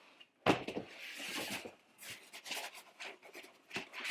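Handling noise from an airsoft minigun and its packaging: a knock about half a second in, then rustling and scattered clicks and taps as the gun is picked up and moved.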